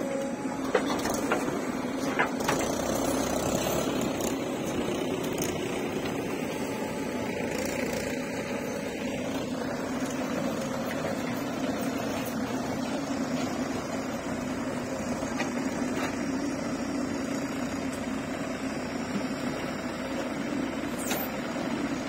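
Diesel engines of a JCB 3DX backhoe loader and Mahindra tractors running steadily under load as soil is loaded and the laden trolleys are pulled away, with a few sharp knocks in the first few seconds.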